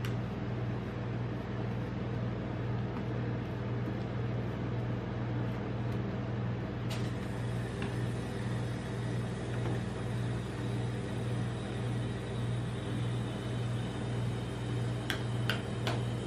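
Steady low hum of the refrigerated cold plate of a rolled-ice-cream machine, with metal spatulas scraping and spreading the ice cream across the steel pan. A few sharp clicks of spatula on metal come near the end.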